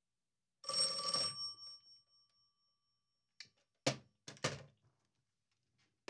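Rotary desk phone's bell ringing once for about a second, its metallic ring fading out, as an incoming call reaches it. A couple of seconds later come a few short, sharp clicks and knocks.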